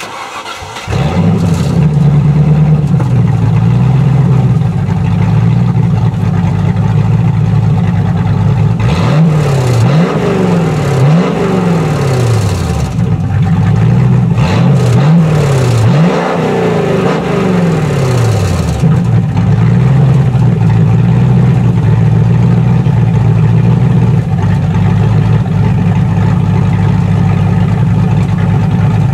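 1995 Land Rover Discovery 3.9 V8i engine, heard at the exhaust with its centre silencer removed. It cranks briefly and catches about a second in, then idles. In the middle it takes several quick throttle blips, each rising and falling in pitch, before settling back to a steady idle.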